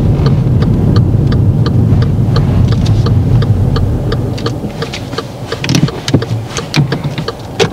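Car's turn-signal indicator ticking steadily, about three clicks a second, over a low rumble from the stationary car's idling engine; the rumble eases after about four seconds.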